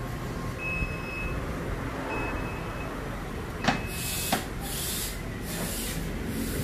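Aftermarket power tailgate on a Mitsubishi Grandis closing, with a high beep sounding several times while it moves. About four seconds in it shuts with two sharp clicks as the latch catches, followed by a pulsing hiss.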